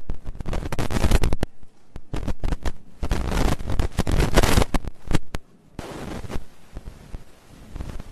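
Camera shutters clicking in rapid bursts as press photographers take pictures, with several clusters of quick clicks separated by short pauses.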